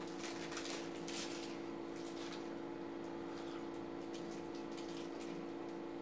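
A steady low hum, with a few soft sipping or cup-handling noises in the first two to three seconds as tea is drunk.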